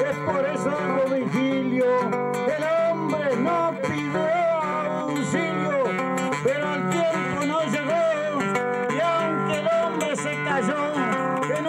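Acoustic guitar music, strummed, with a melody line, playing continuously.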